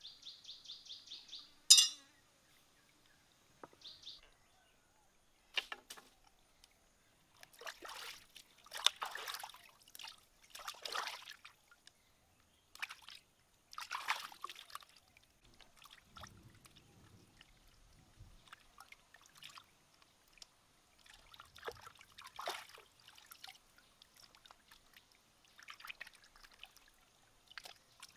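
Water splashing and sloshing in irregular bursts as a plucked whole chicken is rubbed and rinsed by hand in a shallow stream. There is a single sharp knock about two seconds in.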